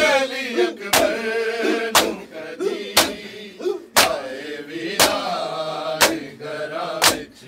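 Men beating their chests in unison during matam: one sharp, loud slap about every second, eight in all, while a group of men chants a noha lament between the beats.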